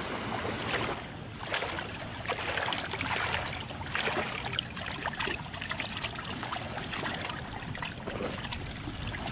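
Water splashing and sloshing as hands rinse freshly cut redfish fillets in shallow water, with a run of small irregular splashes.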